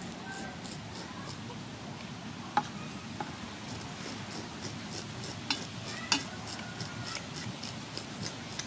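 Fish scales being scraped off a sea fish with the blade of a pair of scissors: quick, repeated rasping strokes at about three a second, with a few sharper clicks.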